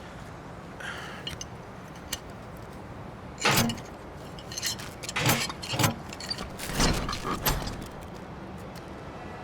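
Metal clanks and rattles of a sealed shipping container being broken open, its door latches and locking bars worked loose. It comes as a string of sharp knocks and rattles, starting about three and a half seconds in and lasting some four seconds.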